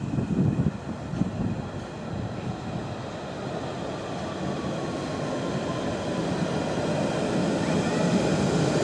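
A London Underground Central Line train approaching, its rumble growing steadily louder, with a faint whine that slowly falls in pitch in the second half.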